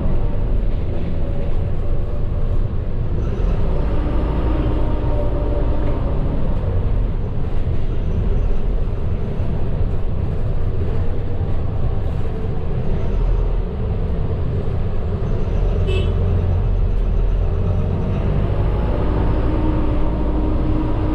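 Medium bus driving, heard from the driver's cabin: a steady low engine and road rumble, with a faint whine that fades in and out. A single short click sounds about two thirds of the way through.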